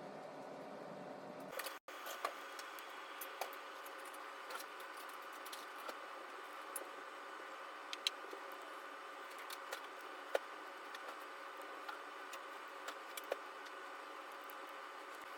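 Scattered light clicks and small rattles of plastic Lego bricks being handled and pressed together, over a steady background hum.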